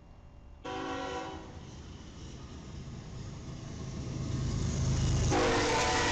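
BNSF diesel freight locomotives passing close by, their engine rumble growing louder as they approach. The locomotive air horn sounds a short chord about a second in, then a louder, held chord near the end.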